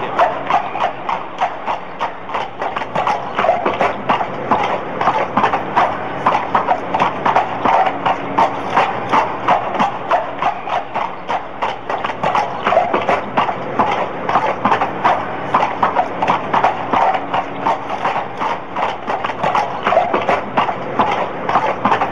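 Hooves of two horses clip-clopping at a walk on an asphalt road, a steady, even run of hoofbeats several times a second.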